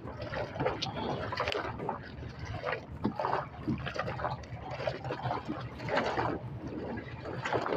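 Water lapping and sloshing between a small boat's hull and concrete pier pilings, in irregular splashes.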